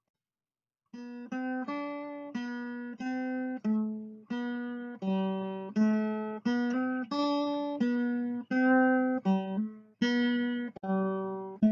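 Acoustic guitar music starting about a second in: a tune of single plucked notes, each ringing out and fading.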